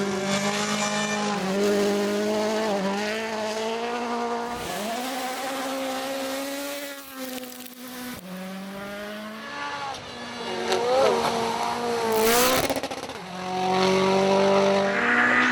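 Rally car engine revving hard, its pitch climbing and dropping through gear changes. It lifts off and goes quieter near the middle, then pulls hard again, with a sharp crack about twelve seconds in.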